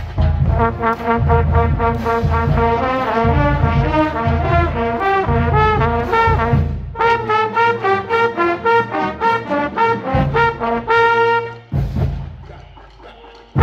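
Marching band brass section, trumpets among them, playing together in quick runs of short notes. After a short break about halfway through, more short notes lead into a held chord that is cut off near the end.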